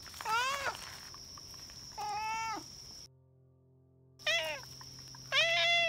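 A domestic cat meowing four times, each meow rising and then falling in pitch. A faint high steady whine sits behind the meows, and there is a second of near silence midway.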